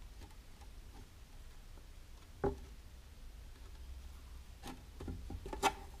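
Faint handling sounds of fingers rubbing and pressing soft clay onto a mug handle, with one brief knock about two and a half seconds in and a few light taps near the end.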